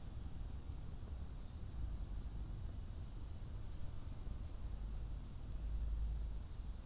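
Crickets chirring in a steady, unbroken high-pitched chorus, over a low rumble that swells about six seconds in.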